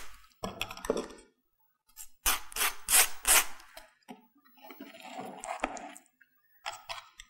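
Table knife scraping across crisp toasted bread while spreading mayonnaise dressing, in quick back-and-forth strokes that come in short runs, the strongest about two seconds in.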